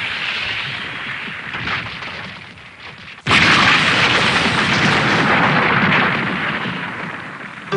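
Cartoon sound effects of rock breaking apart: a steady rumble, then about three seconds in a sudden loud crash like an explosion that runs on as a long crumbling rumble while chunks of stone fall.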